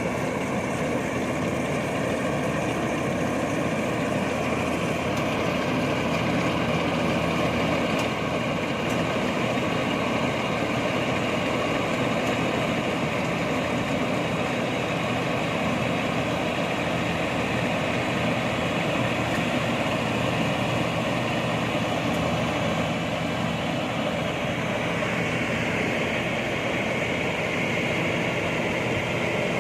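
INARI rice combine harvester running, its engine giving a steady, even drone.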